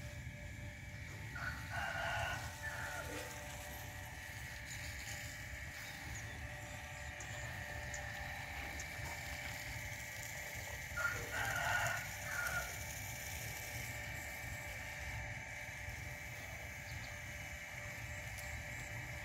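A rooster crowing twice, about two seconds in and again about eleven seconds in, each crow lasting over a second. A steady high tone and a low rumble run underneath.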